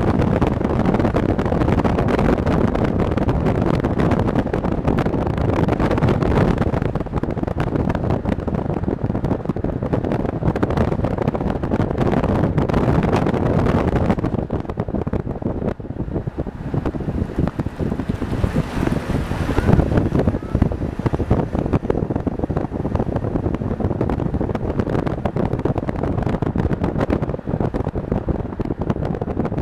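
A car driving, its road and engine noise mixed with wind rumbling on the microphone; the noise eases a little about halfway through.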